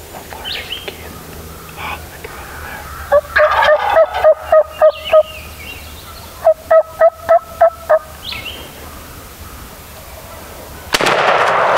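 Wild turkey gobbler gobbling twice, each gobble a rapid rattling string of notes lasting about two seconds, with faint songbird chirps between. Near the end a sudden loud burst of noise sets in.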